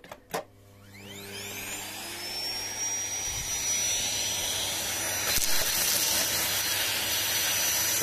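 Corded 2 kW vacuum cleaner, set to minimum power, switched on with a click: the motor spins up with a rising whine over the first couple of seconds, then runs steadily.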